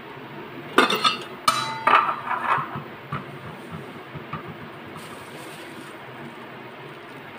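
Metal lid lifted off an electric cooker's aluminium pot and set down, clattering and clinking several times with a brief ringing tone, over a steady background hiss.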